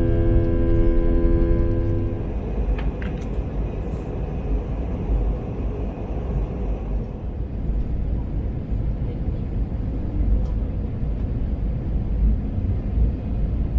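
Low, steady rumble of a moving vehicle. In the first two seconds a held, droning pitched tone runs over it and then stops.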